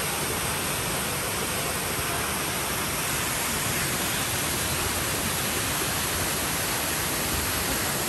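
Waterfall: a steady, even rush of water pouring down onto rock close by.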